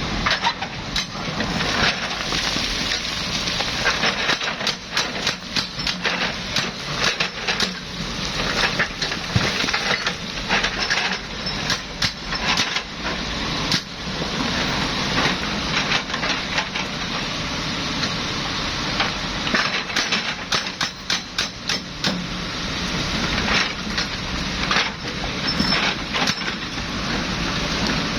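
Excavator working: a steady engine hum under a dense run of sharp cracking and clattering knocks, thickest in two stretches, about a third of the way in and again after two-thirds.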